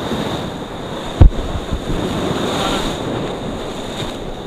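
Sea waves washing and breaking against a rocky shore, with wind buffeting the microphone. A single short dull thump about a second in.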